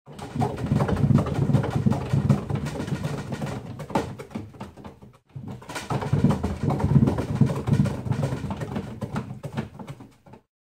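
Large plywood cat exercise wheel spinning fast under a running cat: a loud low rumble of the wheel with rapid knocking of paws on the running surface. It drops away almost to nothing about five seconds in, picks up again half a second later, and fades near the end.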